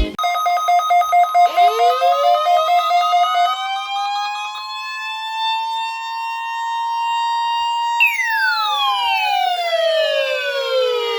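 Warning siren winding up slowly to a steady high pitch, holding, then winding down from about eight seconds in. For the first few seconds it sounds over a pulsing two-tone alarm.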